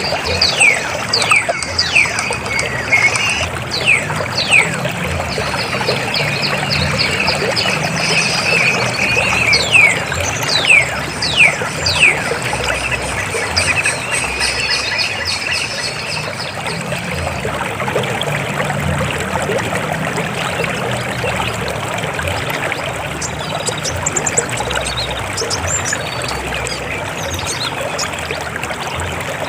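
River water flowing and splashing steadily. Over the first twelve seconds or so, a bird gives a run of short, quickly falling whistles above the water.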